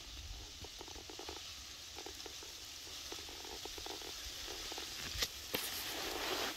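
Faint rustling and crackling, in small clusters, over a low wind rumble on the microphone. About five seconds in come two sharper cracks, then a louder burst of rustling.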